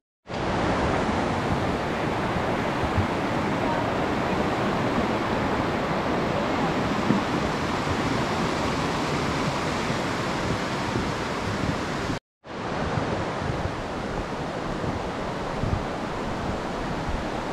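Steady rushing of a river's water running under a footbridge. The noise breaks off briefly about twelve seconds in, then carries on.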